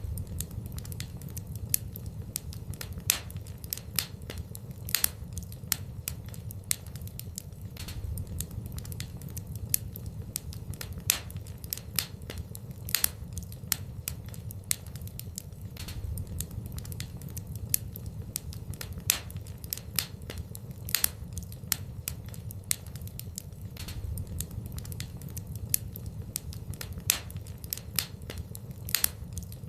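Fire burning in a fireplace, crackling with frequent sharp, irregular pops over a low steady rumble.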